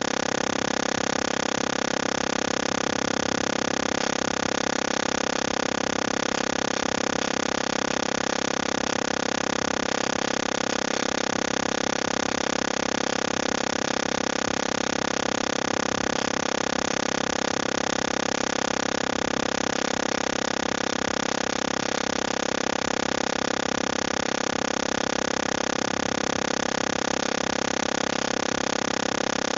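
Steady electronic noise from a failing headset on a live call: an even hiss with several fixed whining tones through it, like someone drilling. It drowns out the presenter's voice.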